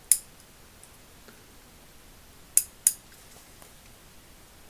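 Bare ratchet mechanism of a 1940s Bonney T35 being worked by hand: the single-tooth pawl clicks over the coarse, 20-tooth gear. There are three sharp clicks, one right at the start and two close together about two and a half seconds in, with fainter ticks between.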